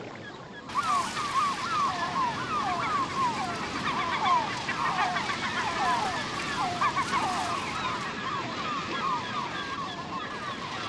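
A large flock of seabirds calling at a feeding frenzy as they dive for krill and fish, many short downward-sliding cries overlapping over a wash of sea noise. The calls cut in suddenly about a second in.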